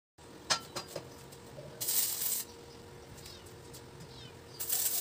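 Stick welder's arc sizzling in two short bursts, about two seconds in and again near the end, over a steady faint hum, with a few light clicks near the start.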